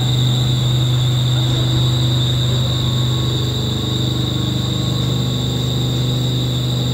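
Horizontal split-casing centrifugal pump set running steadily under commissioning: a loud, constant low hum with a steady high whine above it.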